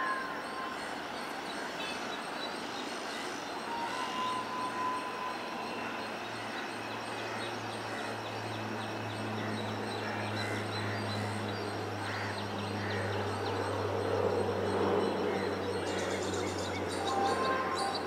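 Distant WAP7 electric locomotive and its train approaching: a low steady rumble builds from about six seconds in and holds, over an even background hiss.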